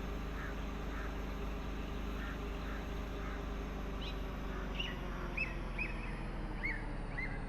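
A bird calling over and over in short hooked notes, about two a second and clearer in the second half, over a steady low background hum.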